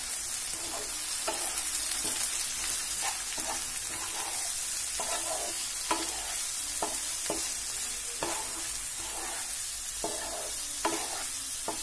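Bhindi masala (okra, tomato and ground spices) sizzling in oil in a nonstick frying pan while a spatula stirs it, with irregular scrapes and taps of the spatula against the pan over a steady hiss.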